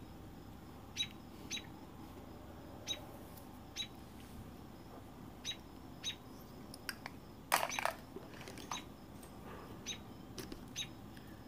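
Faint, short high-pitched chirps repeating at irregular intervals, roughly one or two a second, with a brief louder rustle a little past halfway.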